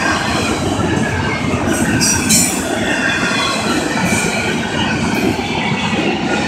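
Empty intermodal well cars of a Florida East Coast Railway freight train rolling past at a grade crossing: steady wheel-on-rail rumble with a faint, continuous wheel squeal. A few brief, sharper high-pitched screeches come about two seconds in.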